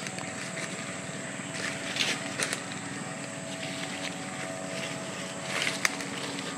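A motor running steadily at an even pitch, with a few short rustles about two seconds in and again near the end.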